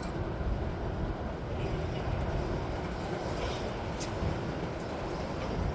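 Steady low rumbling background noise, like a vehicle or traffic, with no speech.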